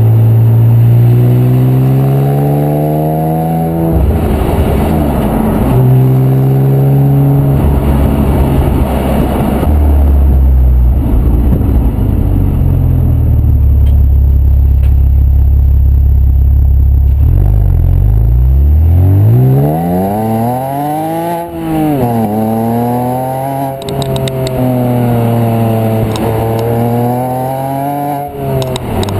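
Exhaust of a 2005 Porsche Boxster S (987.1) flat-six running through a Milltek cat-back system and Cayman manifolds, heard right at the tailpipes while driving. The engine pulls up through the revs twice with a gear change between, runs steadily with heavy wind noise in the middle, then its revs sweep up and down several times near the end.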